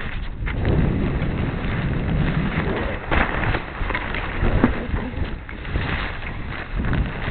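Wind buffeting the microphone on a sailboat under sail: a rushing, rumbling noise whose level rises and falls with the gusts.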